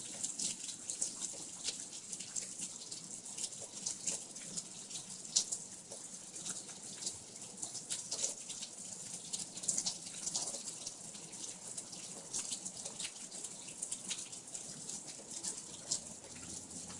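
Rain falling, many small drops pattering and ticking irregularly at a steady rate.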